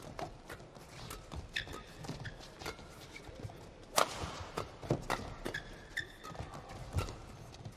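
Badminton doubles rally: rackets hitting the shuttlecock back and forth in sharp cracks at irregular spacing, the loudest about four seconds in, with players' footsteps on the court between hits.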